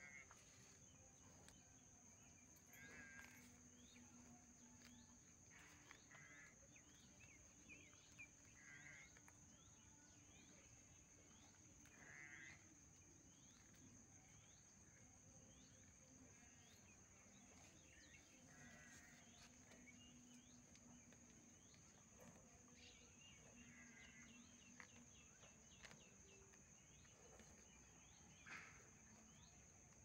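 Near silence: faint rural ambience with a steady high-pitched insect drone and short chirps every few seconds.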